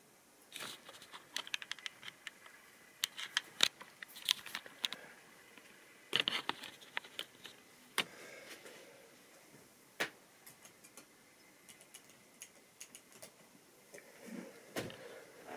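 Irregular light clicks and taps, many in the first half and fewer later, with no steady running sound.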